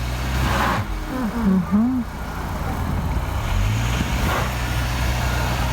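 Car engine running steadily as the car is driven in reverse against packed snow, with a few short hissing swells.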